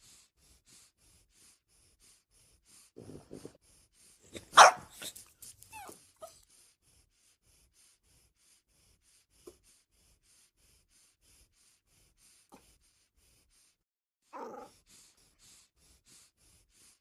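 French bulldog barking and yipping in short, scattered bursts; the loudest is a high yelp about four and a half seconds in, followed by a few smaller yips, then another bark near the end.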